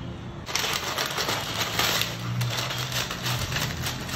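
Baking paper crinkling and rustling as it is handled, with light clicks and taps from an aluminium cake pan set down on it, from about half a second to about three seconds in.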